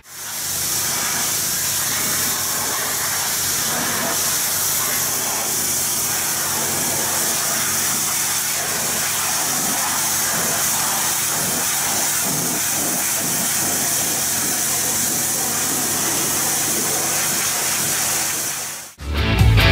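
Hot-water pressure washer jet spraying against an excavator's steel side panel: a loud, even hiss with a steady engine running underneath. It cuts off abruptly near the end.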